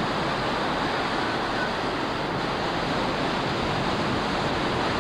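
Ocean surf breaking and washing through the shallows: a steady rush of water noise.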